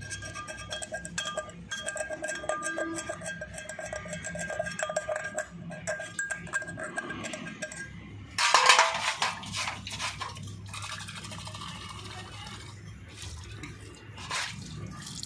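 Glass sediment bowl of a tractor's diesel filter being scrubbed clean, ringing and clinking in quick repeated strokes. About eight seconds in there is a louder, brief rushing noise, followed by quieter knocks.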